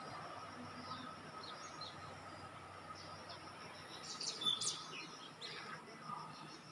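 Small birds chirping: scattered short high calls, with a quick flurry of them about four and a half seconds in, over a faint steady tone.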